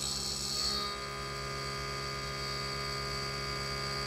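End mill slotting 316 stainless steel on a CNC mill, giving a squeal. After a noisier first second it settles into a steady high-pitched whine.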